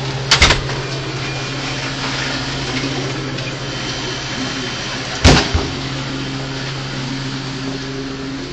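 Steady mechanical hum and hiss, broken by two sharp knocks: a quick double knock about half a second in and a louder one a little after five seconds.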